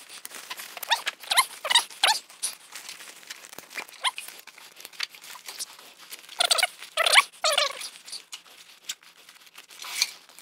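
Rustling and scraping of a loaded Kifaru Mod Deuce nylon pack on an ARK frame being handled: webbing straps pulled through buckles and the fabric rubbing, in a series of short scratchy strokes, loudest in a cluster a little past the middle.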